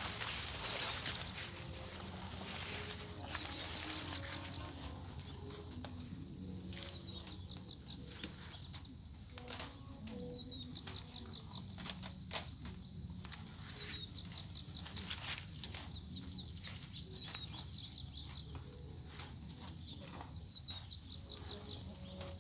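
Steady high-pitched insect chorus that never lets up, with short bird chirps coming and going over it.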